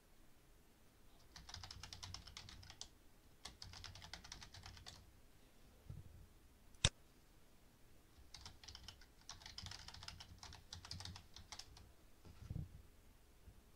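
Typing on a computer keyboard: two quick runs of keystrokes, a single sharp click about seven seconds in, then a longer run of typing and a dull knock near the end.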